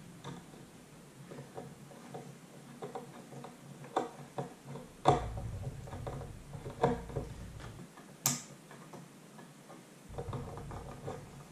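A hand screwdriver driving small quarter-inch Phillips wood screws into a wooden telescope base: irregular light clicks and ticks, with a few sharper taps now and then.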